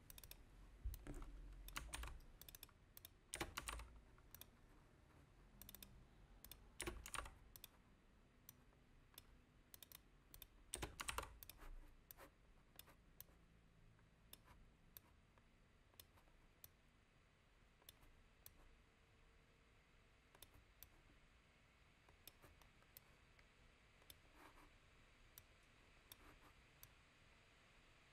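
Faint typing on a computer keyboard, in short runs through about the first twelve seconds, then scattered single key or mouse clicks.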